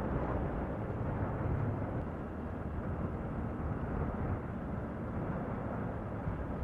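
Yamaha Sniper 150 motorcycle on the move: steady wind and road noise on the rider's microphone, with no clear engine note standing out.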